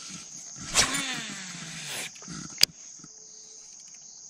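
A cast with a baitcasting rod and reel: a swish of the swing, then the reel's spool whirring as line pays out, its pitch falling as the spool slows, and a single sharp click about two and a half seconds in. Insects buzz steadily and high-pitched throughout.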